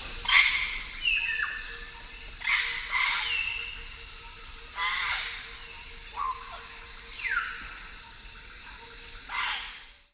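Tropical rainforest soundscape: a steady high insect drone, with loud animal calls about every two and a half seconds and several whistled calls that slide down in pitch.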